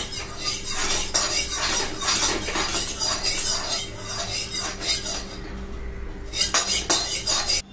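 Wire whisk beating cake batter in a steel pot, clinking and scraping against the metal sides in quick repeated strokes.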